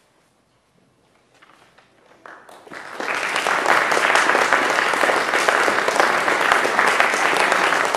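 An audience applauding: after about two seconds of near quiet with a few scattered early claps, clapping swells quickly and settles into steady, full applause.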